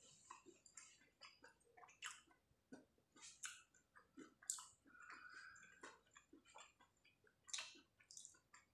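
Faint, close-up chewing of crispy fried chicken: irregular crunches and wet mouth sounds.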